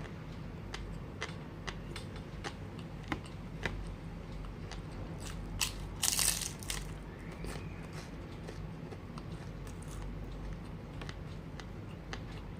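Close-up eating of sushi: a run of small mouth clicks and crunches from chewing, with one louder noisy crunch about six seconds in, over a steady low hum.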